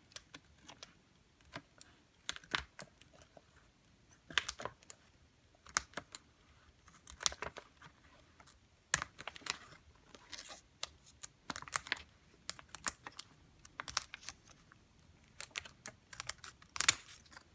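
Scissors snipping through heat transfer vinyl, trimming it close around an edge: short, crisp snips, singly and in small clusters about every second or two.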